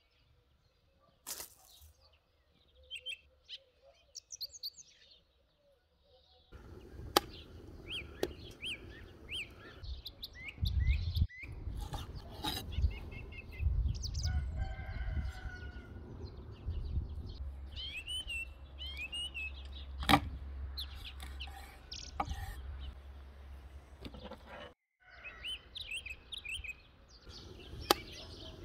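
Birds chirping with many short high calls throughout, over a low rumble that sets in a few seconds in. A few sharp knocks of a knife on a wooden cutting board as raw chicken thighs are cut.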